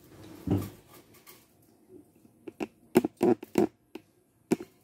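Hands working at an Anet ET4 3D printer as the filament is pulled out of the heated nozzle: a soft thump, then a quick run of sharp clicks and knocks, and one more click near the end.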